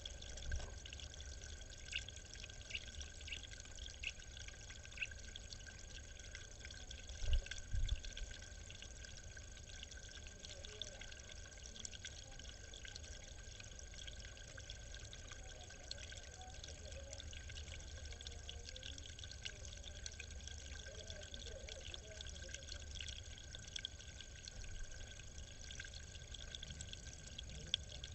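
Water trickling steadily into a small pond. A few faint ticks come in the first few seconds, and a pair of low thumps about seven seconds in.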